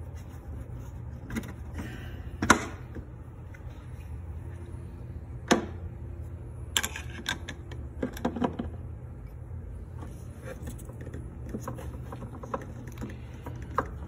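Scattered clicks and knocks of an old engine wiring harness and its connectors being handled and pulled about in a car's engine bay, the sharpest about two and a half seconds in, over a steady low hum.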